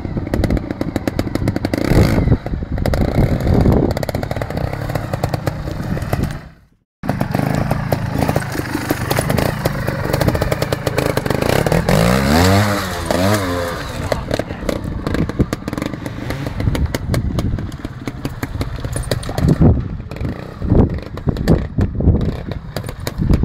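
Beta trials motorcycle engine blipping and revving hard as it picks its way over big rocks, with clatter of tyres and stones on rock. About halfway through the revs rise and fall sharply several times in quick succession. The sound briefly drops out to silence about a third of the way in.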